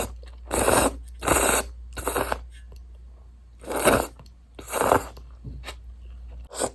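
Close-miked eating of Sapporo Ichiban miso instant ramen with butter and corn. There are five short, loud mouthfuls of about half a second each, with two fainter ones near the end, separated by quieter pauses.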